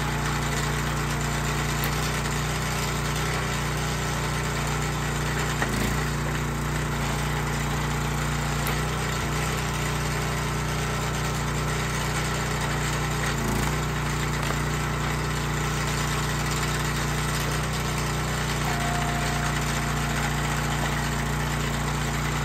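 Dirty Hand Tools hydraulic log splitter's small gas engine running steadily while splitting firewood, with two short knocks from the wood under the ram.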